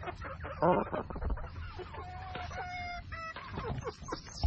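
Young chickens clucking and calling, with a louder squawk a little under a second in and a longer, steady call about two seconds in.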